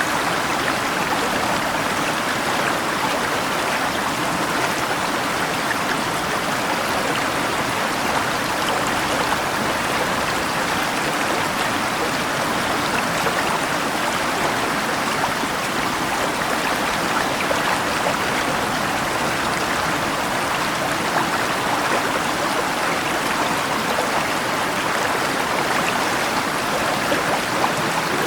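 River water flowing steadily with rain falling, a continuous even rushing sound with no change in level.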